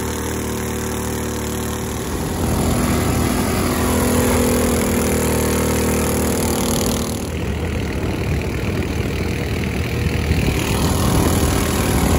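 Predator 212 single-cylinder engine on a longtail mud motor, fitted with an aftermarket exhaust and an open cone air filter, running hard to drive the boat at speed while the surface-drive prop throws up spray. It gets louder about two seconds in and then holds steady.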